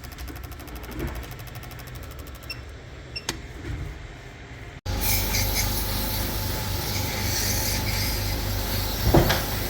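Car engine idling with a low, steady rumble; about five seconds in, an abrupt cut to a louder, steady hiss over a low hum.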